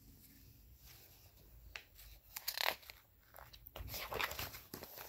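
A picture-book page being turned by hand, the paper rustling in a few irregular swishes, loudest about halfway through and again near the end.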